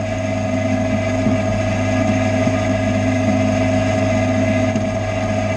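Boxford metalworking lathe running under power: a loud, steady mechanical hum with a higher whine over it, its gear shaft turning in a newly fitted brass bush.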